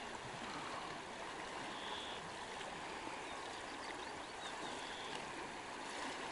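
River water rushing over a shallow, stony riffle: a steady even rush.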